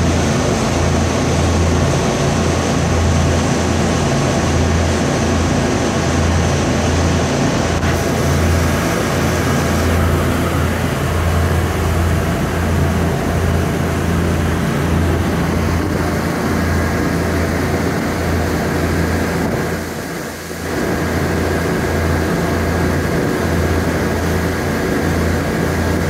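Twin 7.4-litre MerCruiser V8 gasoline inboard engines of a cruiser running at speed: a loud, steady drone with a throbbing low beat, over the rush of wind and water past the hull.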